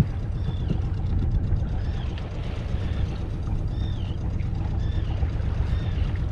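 Steady low rumble aboard a sailing yacht under way, with short chirping bird calls repeating about once a second over it.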